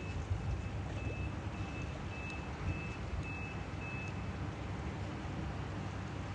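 Vehicle reversing alarm beeping at an even pace, about two beeps a second, stopping about four seconds in, over a steady low rumble.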